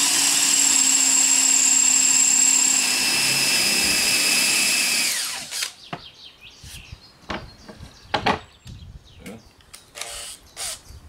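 Cordless drill boring a hole through a white board, running at steady speed with a constant whine, then winding down and stopping about five seconds in. Scattered short knocks and taps follow.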